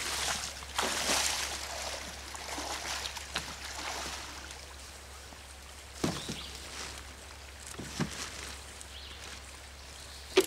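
Stream water running over riffles, with splashing in the first couple of seconds as someone wades through the shallows. Later come a few short knocks as a cooler is set down and pushed into a canoe, the sharpest one near the end.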